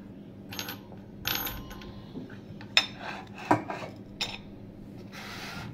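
Whole spices dropped into a stainless-steel mesh spice infuser ball, giving a few sharp metallic clicks as the spices and the metal halves knock together, then a short rustling hiss near the end as spices slide off a tilted plate.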